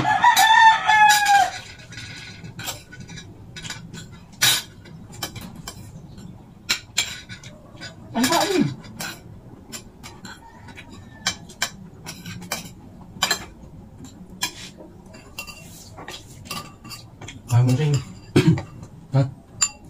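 Spoon and fork clinking and scraping on ceramic plates as people eat, in scattered sharp ticks every second or so. A short pitched call sounds in the first second.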